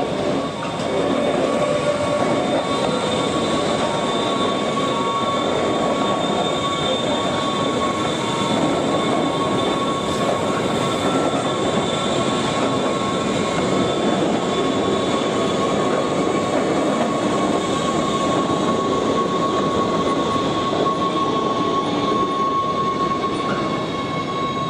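Wengernalpbahn electric rack-railway train moving slowly past close by, a steady running noise with a thin high whine held throughout.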